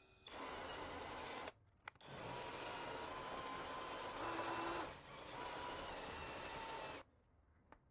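Cordless drill spinning a wire wheel brush against a steel air compressor tank, scrubbing off paint and rust to bare the leaking spot. It runs briefly, stops, then runs again for about five seconds with a short dip partway through.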